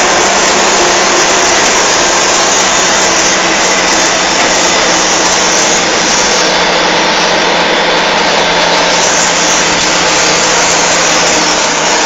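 Mercedes-Benz 911 timber truck's diesel engine running steadily under way, its note rising slightly right at the end.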